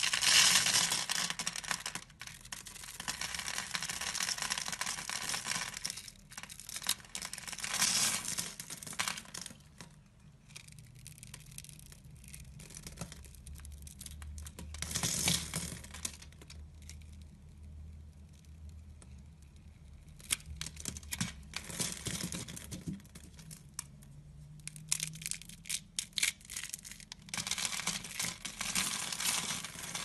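A blade cutting through a scored bar of dry soap, the small cubes crunching and crackling off in bursts with quieter pauses between. Near the end, fingers crumble loose soap shavings.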